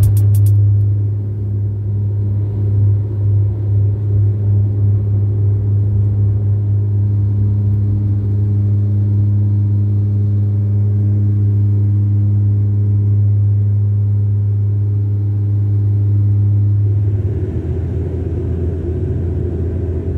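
Cabin drone of a Dash 8-400 turboprop airliner's propellers and engines, heard inside the cabin: a loud, steady low hum with a few even tones above it, wavering in loudness for a few seconds near the start. Near the end it gives way to a rougher, more even rushing noise.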